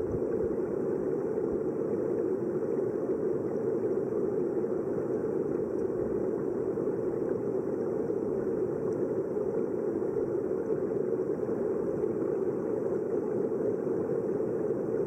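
Steady, muffled rush of flowing river water heard underwater, an even noise with no breaks or events.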